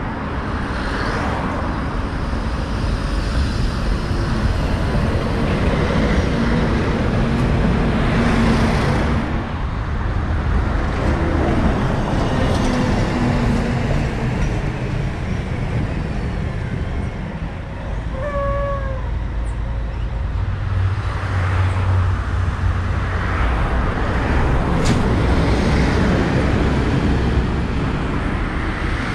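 City street traffic: cars passing one after another at steady moderate loudness, with a short high squeak about two-thirds through. A deeper engine hum builds over the last third as a city bus draws near.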